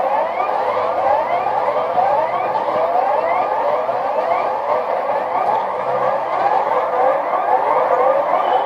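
Emergency alert (EAS) alarm: a loud siren tone sweeping rapidly upward over and over, about three sweeps a second, without a break.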